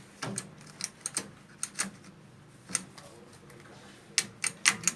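Irregular sharp clicks and light knocks from hands working on a currency counting machine under repair. The clicks come closer together near the end.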